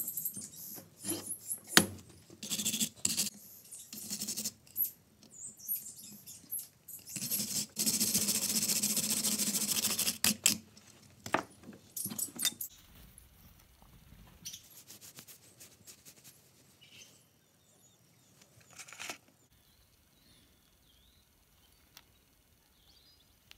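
Spark plugs being handled and clamped in a steel bench vise: sharp metal clicks and knocks, then a steady rushing, scratchy noise of about three seconds starting some seven seconds in, as the plugs are cleaned. A few more knocks follow, then only faint handling.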